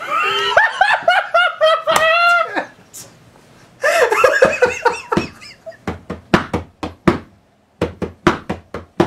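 Two young men burst out laughing in two bouts, the first long and loud. After that comes a run of about a dozen sharp knocks, roughly three a second, that carries on to the end.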